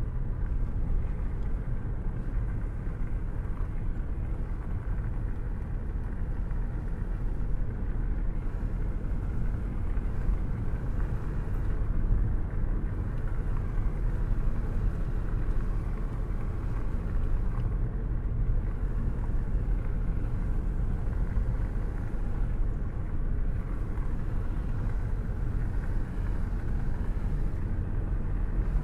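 Steady, muffled rain with a deep, continuous low rumble from a thunderstorm.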